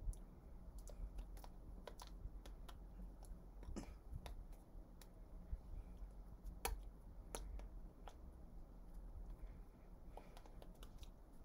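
Irregular soft clicks and taps of hands striking and brushing against each other during sign language, about a dozen scattered through, with one sharper slap about two-thirds of the way in. A low steady hum sits underneath.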